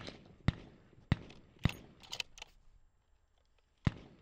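A string of sharp, short gunfire cracks at a range, following a suppressed .338 Lapua rifle shot. There are four cracks about half a second apart, a quick cluster of lighter clicks around the middle, and one more crack near the end.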